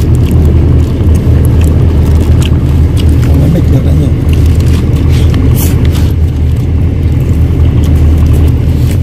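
A nearby engine running steadily, a loud low rumble, with small clicks and rustles on top.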